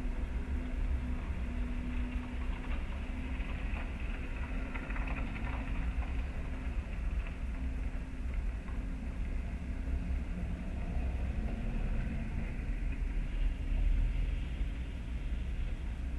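Car engine idling with a steady low hum, heard from inside the stationary car's cabin.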